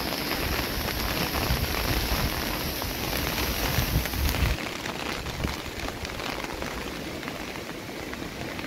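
Steady hiss of water, with a low rumble underneath that drops away about four and a half seconds in.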